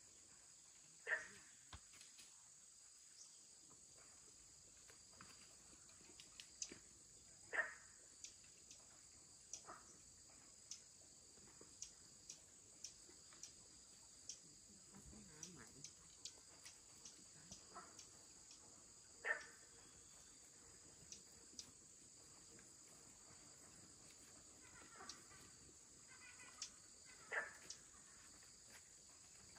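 Crickets chirring, a faint steady high drone, with short sharp taps or clicks every few seconds.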